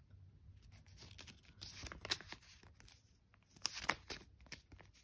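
Stiff, smooth release-paper sheets rustling and crackling as a handheld stack is leafed through, faintly, with louder handling about two seconds in and again near four seconds.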